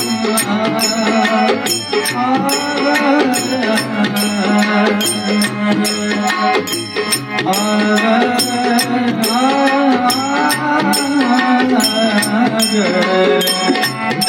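Marathi devotional song: a singing voice with harmonium and tabla accompaniment, over a steady beat of bright, sharp strikes about two to three times a second.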